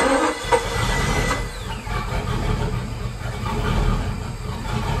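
The inboard engine of a 1998 Chris Craft 200 BR running with a steady low rumble, just started after a new ignition coil was fitted. It sounds a little weak.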